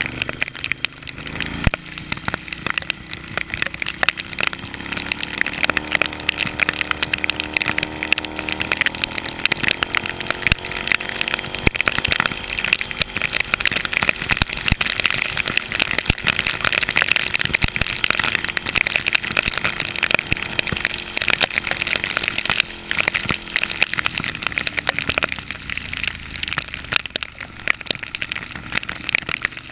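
Heavy rain pelting the camera in a dense crackle over wind rush, with the Ducati Hypermotard's L-twin engine running underneath. The engine's pitch rises a little after several seconds and fades out near the end.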